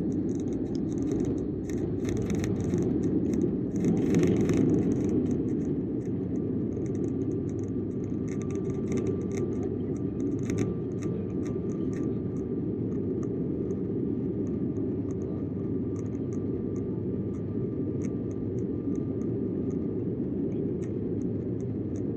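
Steady low cabin noise inside a Sukhoi Superjet 100 airliner during takeoff, from its two SaM146 turbofan engines and the air rushing over the fuselage, a little louder a few seconds in. Small ticks and rattles from the cabin fittings come and go throughout.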